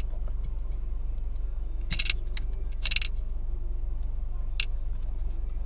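Loose coins clinking and rattling as change is picked out of a car's shifter assembly, in short bursts about two and three seconds in and once more near the end. A steady low hum runs underneath.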